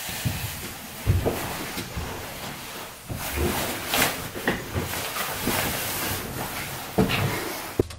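A heavy canvas coat rustling as it is pulled on and its hood drawn up, with footsteps and several dull thumps over a steady hiss of room noise.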